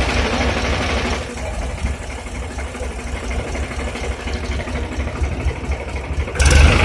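Tractor diesel engine idling steadily, getting louder near the end.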